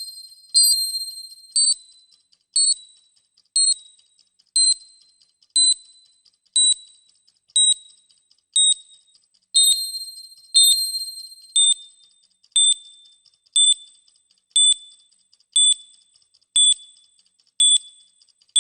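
Countdown timer sound effect: a short, high electronic ding once a second, each fading away quickly. Near the start and again about ten seconds in, the tick comes as a louder, longer double ding.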